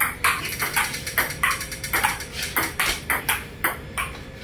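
Table tennis rally: the ball clicking off the paddles and bouncing on the table in a quick, steady back-and-forth, about three to four clicks a second.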